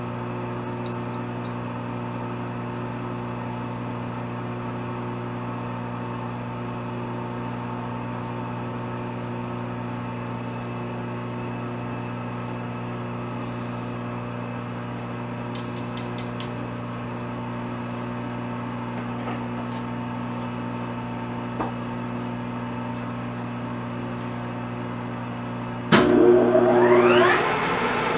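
Pratt & Whitney Model B lathe's electric drive humming steadily. About 26 seconds in comes a sudden loud clunk, and then a rising whine as the spindle is started up.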